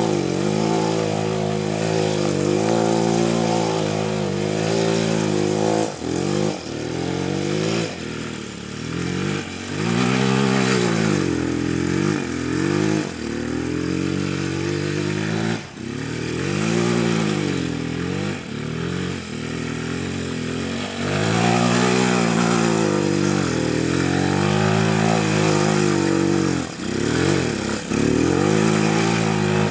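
Bashan 250 quad's 250 cc engine revving hard as it is ridden. It holds high revs for the first few seconds, then rises and falls over and over as the throttle is opened and shut, and runs high again for a spell in the second half.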